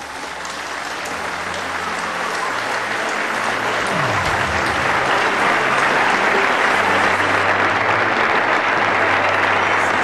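Audience applauding, swelling over the first few seconds and then holding steady.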